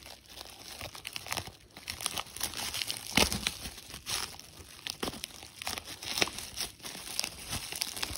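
Bubble wrap crinkling and crackling as it is handled and cut open with a knife, in irregular rustles, with a sharp snap about three seconds in.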